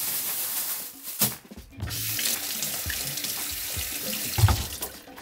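Kitchen tap running into a stainless steel sink as a glass and then green chili peppers are rinsed under the stream. The flow breaks off briefly about a second and a half in, and there is a knock shortly before the water stops near the end.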